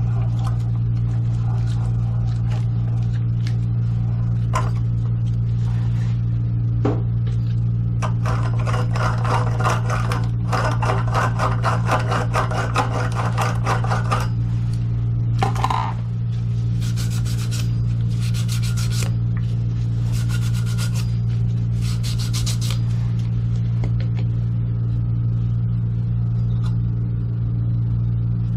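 Rapid rubbing and scraping strokes, in one run of several seconds and then three shorter bursts, over a steady low hum.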